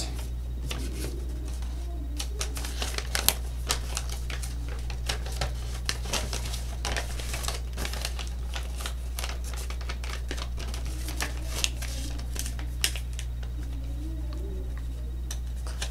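Irregular clicking and crinkling as toy parts and packaging are handled, over a steady low electrical hum.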